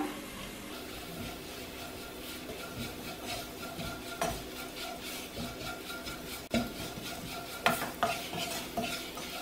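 Wooden spatula stirring and scraping spice powders through frying onion-tomato masala in a nonstick pot, with a low sizzle. A few knocks of the spatula against the pot come in the second half.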